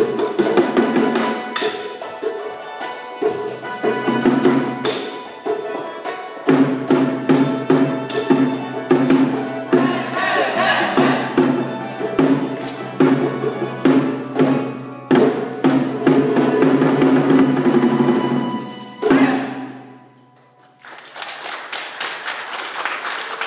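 Ensemble of yangqin (Chinese hammered dulcimers, the 'butterfly zither') playing a rhythmic dance tune of densely struck notes with jingling percussion, ending on a final accented stroke. After a brief pause, audience applause starts near the end.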